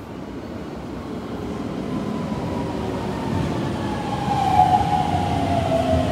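Keikyu train approaching the platform, its rumble growing steadily louder, with a whine that slides slowly down in pitch and is loudest near the end.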